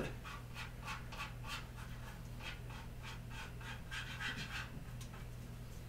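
A stirring stick scraping around a mixing cup in repeated short strokes, about three a second, as filler is stirred into runny epoxy to thicken it to a paste. A faint steady hum runs underneath.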